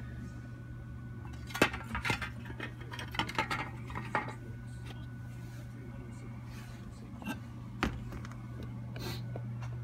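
Workbench handling noises: a few sharp clicks and clinks as small objects are picked up and set down, over a steady low hum.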